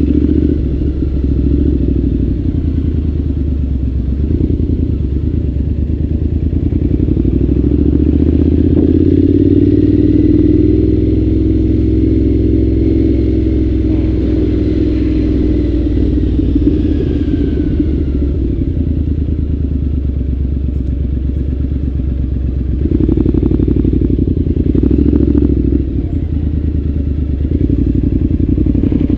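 Triumph Scrambler 900's parallel-twin engine running through a ZARD aftermarket exhaust as the bike rides through town. The exhaust note swells and rises in pitch as it accelerates about a third of the way in, then settles, with two short surges of throttle near the end.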